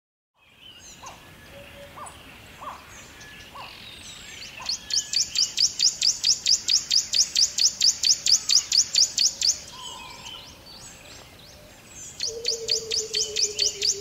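Young chickens peeping: a fast series of high, short peeps, about five a second, from about five seconds in to nearly ten seconds and again from about twelve seconds, with a low steady tone under the second run.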